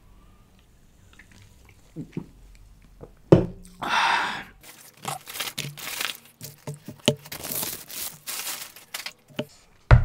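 Paper fast-food wrapper crinkling and tearing as it is handled, in many short rustles. There is a sharp knock on the table about three seconds in and a thump at the very end.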